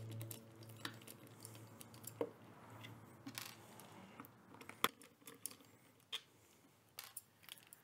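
Precision screwdriver with a T10 security Torx bit turning screws out of a plastic battery case: faint, scattered small clicks and ticks, with one sharper click a little past the middle.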